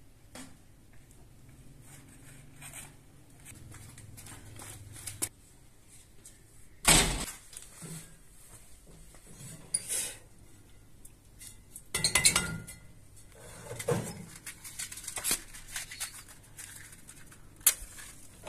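Metal clatter from handling a round metal bread griddle and its sheet-metal oven: scattered knocks, clinks and scraping. The loudest knock comes about seven seconds in, and a clattering run with a short metallic ring about twelve seconds in.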